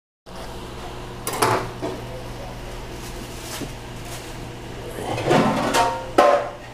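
Kitchen clatter: sharp metal knocks and scrapes, once about a second in and again louder near the end, over a steady low hum.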